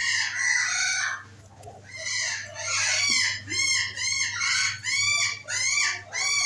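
A dog whining in play: a string of short, high whines that each rise and fall, coming about twice a second from about halfway through.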